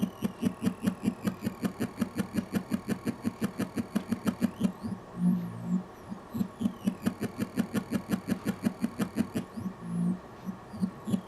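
Synthesizer wobble-bass patch ('Slide into Wobble') from the ROLI Noise app, played through a Bluetooth speaker. A thick bass pulses fast and evenly, about six throbs a second, with gliding pitches above it. Two short held notes break the pulsing, about five seconds in and again near the end.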